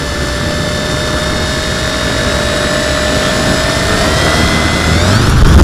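F450 quadcopter's electric motors and propellers spinning, heard close from its onboard camera: a steady whine that slowly rises in pitch and grows louder, then climbs more sharply near the end as the motors throttle up for takeoff.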